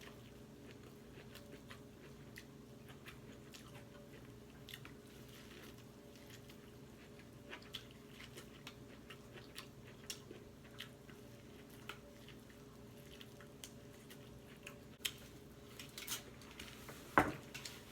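Quiet eating sounds: a person chewing and biting, with scattered small wet clicks from the mouth. The clicks come more often and louder near the end, with one sharp snap, over a faint steady hum.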